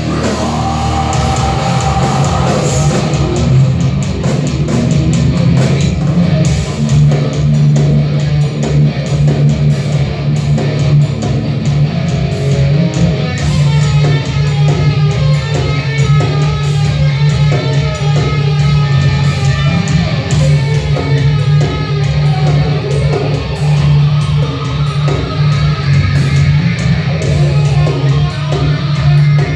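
Heavy metal band playing live: distorted electric guitar, bass guitar and drums, loud and continuous.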